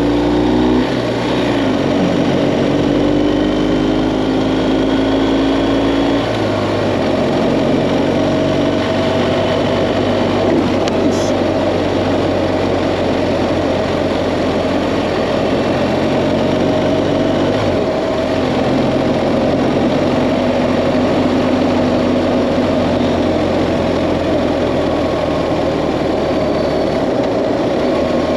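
BMW GS Adventure motorcycle engine running while riding, under steady wind and road noise; the engine note changes pitch a few times as the speed changes.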